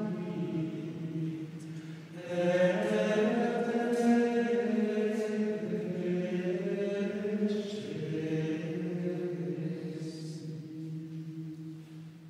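Benedictine monks singing a Gregorian chant introit in unison, a slow, flowing line of male voices. There is a short breath pause about two seconds in, then the closing phrase fades away near the end.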